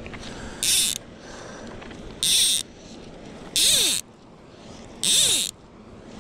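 Fly line being stripped in by hand in four short pulls, each a brief zipping rasp about a second and a half apart, as the popper is worked across the water in easy pops.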